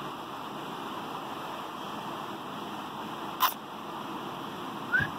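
Steady, even background hiss, with one sharp click a little past halfway and a brief short sound just before the end.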